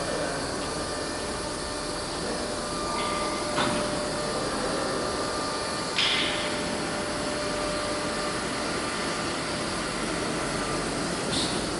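CNC router running, a steady machine noise with a faint high whine from the spindle, and two brief sharp knocks about three and a half and six seconds in.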